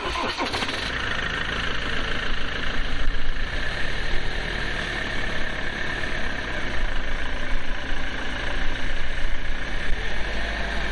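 Ford Transit Mk7 van's engine starting with a short rev, then running steadily as the van pulls slowly forward.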